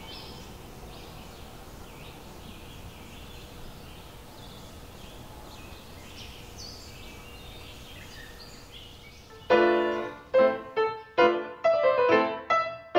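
Scattered bird chirps over a steady outdoor hiss. About nine and a half seconds in, an upright piano starts playing, a run of much louder struck notes at two or three a second.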